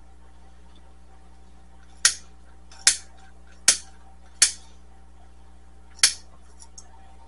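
Five sharp, hard clacks at uneven intervals, like hard objects knocked or set down on a hard surface, followed by a couple of faint ticks near the end.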